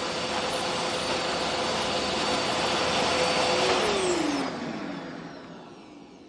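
Small supercharged turbine engine running at idle with a steady rushing hiss and a held whine; about four seconds in, the whine falls in pitch and the sound fades as the turbine spools down.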